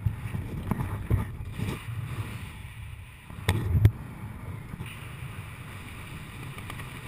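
Wind buffeting a helmet camera's microphone during a descent under an open parachute canopy: an uneven low rumble with a few sharp knocks, swelling louder about three and a half seconds in.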